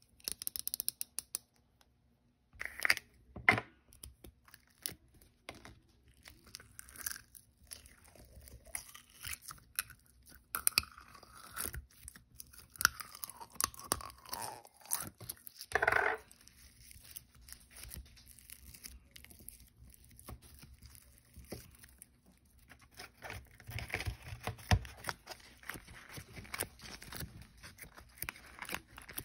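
Plastic slime containers being handled and opened, and clear slime being worked by hand in a plastic tub: irregular crackling, crunching and tearing. Near the start there is a run of quick clicks as a screw lid is twisted.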